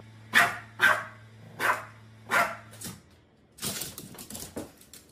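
A Boston terrier barking four times, short sharp barks evenly spaced over about two and a half seconds. After a brief pause, a quick run of light clicks and taps follows.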